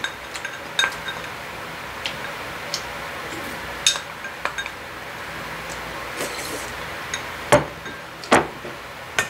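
Chopsticks clinking and tapping against a small ceramic bowl: a scattering of light clicks, with two louder knocks about seven and a half and eight and a half seconds in.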